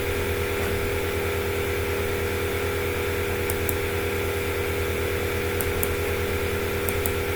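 A steady hum with a fast flutter in its low part runs throughout. Over it come pairs of short, sharp clicks, about three times, fitting mouse double-clicks while the program is edited.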